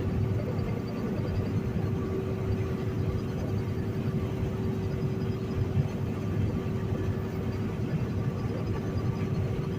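Semi truck cab interior while driving at highway speed: a steady low engine and road rumble with a constant hum.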